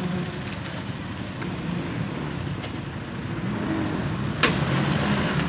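Low vehicle engine rumble, with one sharp click about four and a half seconds in.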